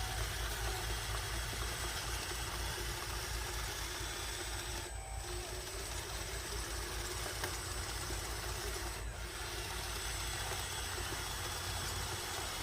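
Radio-controlled model bulldozer running steadily, an engine-like low pulsing rumble under a constant hiss, with two brief dips in the hiss partway through.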